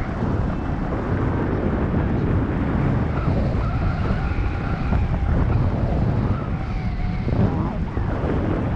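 Wind rushing over an action camera's microphone in a tandem paraglider's flight: a steady, heavy low buffeting rumble.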